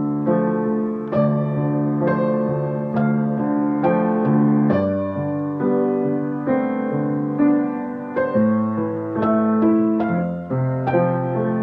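Acoustic piano played four hands: an improvisation in A minor, with bass notes and held chords under a melody, new notes struck about every half second to second.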